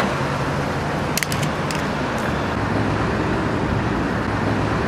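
Steady road-vehicle engine and traffic noise, a low even hum under a wash of road noise, with a few light clicks just over a second in.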